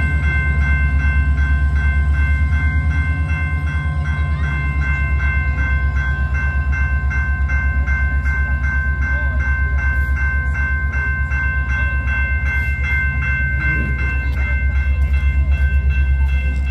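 Level-crossing warning bell ringing steadily, a few strikes a second, over the deep rumble of the CP Holiday Train's diesel locomotive passing through the crossing.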